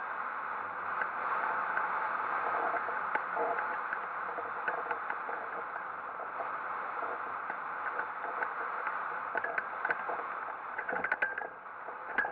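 Steady rush of wind over a camera mounted on a hang glider gliding in low to land, with a few sharp knocks near the end.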